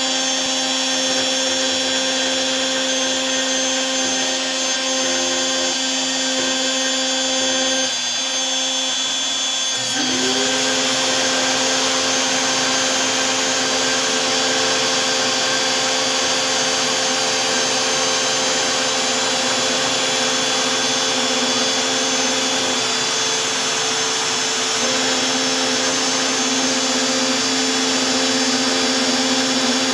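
DeWalt 611 trim router on a LowRider 2 CNC cutting a full-depth 10.4 mm slot in HDPE with a single-flute 1/8" bit, running steadily. About ten seconds in, a dust vacuum switches on, its whine rising as it spins up, and then runs along with the router.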